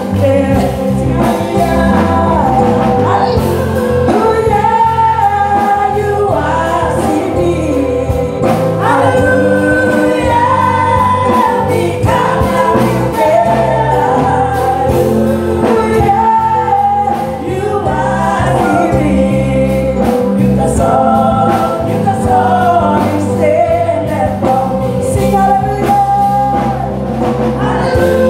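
A women's group singing a gospel song, with one lead singer on an amplified microphone, over held low instrumental notes.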